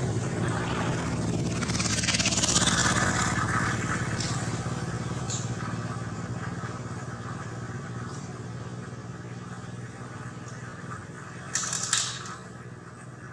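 A motor vehicle engine running steadily, loudest about two to three seconds in and then fading gradually. A short hiss comes near the end.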